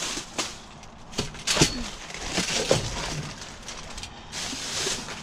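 Plastic trash bags rustling and crinkling as a long-handled grabber pokes through dumpster rubbish, with several sharp clacks and knocks in the first three seconds.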